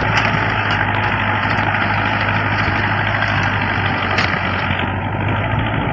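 Old International tractor with a Mahindra DI 575 diesel engine running steadily under load, pulling a seven-foot rotavator that churns through the soil.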